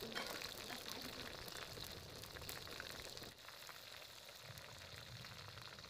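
A whole chicken deep-frying in plenty of hot oil in an iron karahi: a faint, steady sizzle with fine crackling, easing slightly about halfway through.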